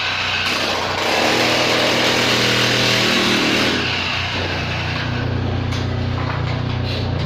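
An engine running steadily, its speed stepping up about a second in and changing again about four seconds in.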